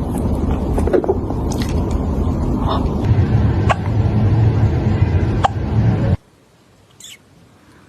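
A cat hiccuping, several short sharp hics at irregular intervals, over a loud low rumble that cuts off about six seconds in. The hiccups are typical of a cat that has eaten too fast.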